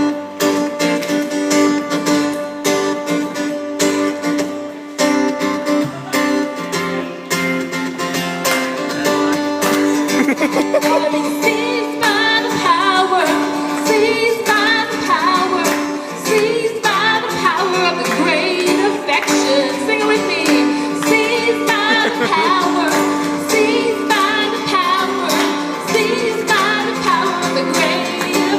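Acoustic guitar strummed in a steady song accompaniment, with voices singing along from about ten seconds in.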